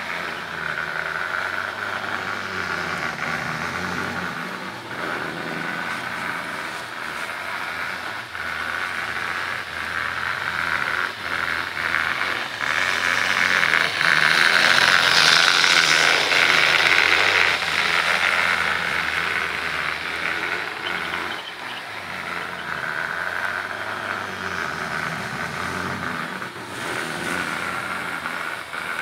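Bachmann HO scale model train running on its track: a steady small-motor whine with wheel clatter. It grows louder about halfway through as the locomotive comes near, then eases off.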